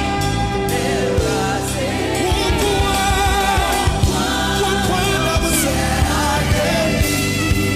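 Gospel praise music: singing voices over a band with a steady drum beat.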